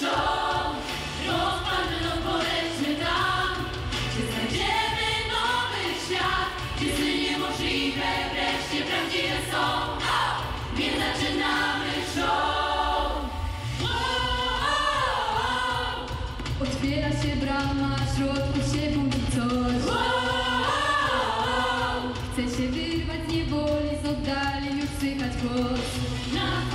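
Mixed vocal group singing together into handheld microphones over an amplified backing with a steady bass, which drops out briefly about 13 seconds in.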